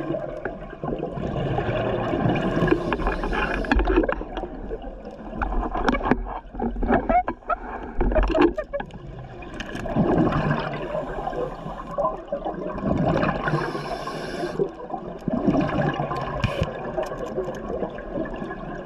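A scuba diver breathing through a regulator underwater: hissing inhalations and gurgling, bubbling exhalations, coming in repeated rounds every few seconds.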